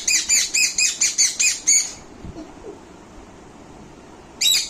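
Young Indian ringneck parrot calling in a fast series of about eight shrill calls, each rising and then falling in pitch, for about two seconds; a second series starts near the end. The owner takes the calling for hunger and temper.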